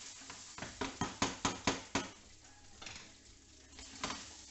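Diced prawns sizzling in an oiled frying pan as a wooden spoon stirs them, knocking against the pan about eight times in quick succession in the first two seconds, with another knock near the end.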